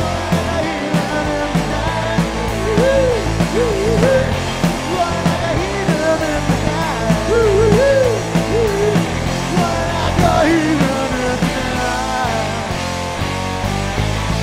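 Live rock band playing: electric guitars, bass and a drum kit over a steady beat, with a lead line that bends up and down in pitch.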